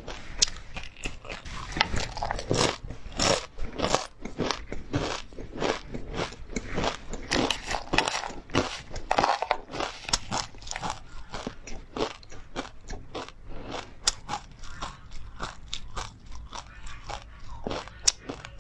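Mouth chewing a crunchy oil-fried mix of perilla seeds, pumpkin seeds, flaxseeds and chili: a quick, unbroken run of crisp crackling crunches.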